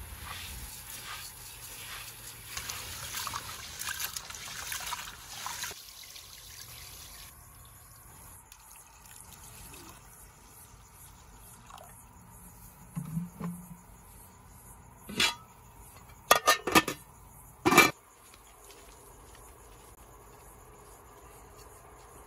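Liquid pouring and trickling for the first few seconds. Later comes a single sharp knock, then a quick cluster of knocks, and finally one loud knock.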